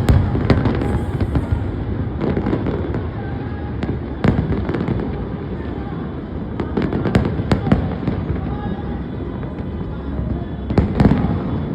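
Fireworks display: sharp bangs of shells bursting at irregular intervals, bunched near the start, about four seconds in, around seven seconds in and again near the end, over a continuous rumble of crackling and crowd noise.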